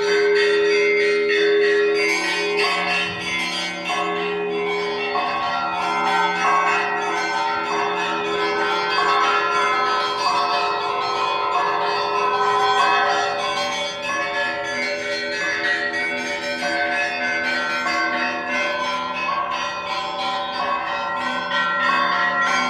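Orthodox church bells ringing the Easter peal: several small bells struck in quick, dense succession over the long hum of larger bells, which are struck again now and then.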